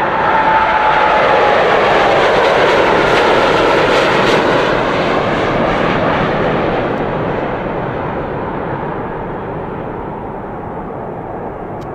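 Boeing 787 Dreamliner's twin jet engines at takeoff thrust as it lifts off and climbs away: a loud roar with a whine that falls in pitch over the first couple of seconds. The sound slowly fades through the second half as the jet recedes.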